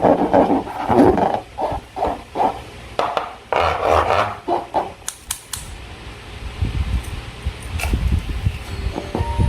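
Slime being worked by hand, with irregular wet squelching bursts over the first few seconds and a few sharp clicks about five seconds in. A low rumble follows to the end.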